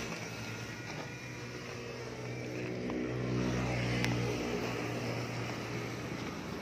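A vehicle engine runs steadily nearby with a low, even hum that swells about three seconds in. A single sharp click comes about four seconds in.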